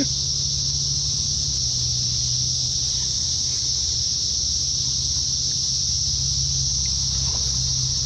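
Dense chorus of cicadas: a steady, unbroken high-pitched drone, with a low steady hum underneath.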